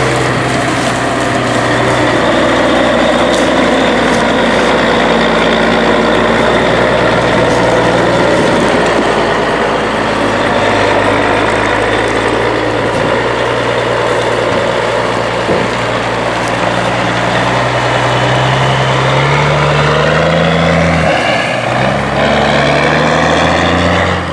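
Diesel engine of a 1982 GMC General semi-truck running steadily in the field, its pitch climbing twice near the end as it revs up.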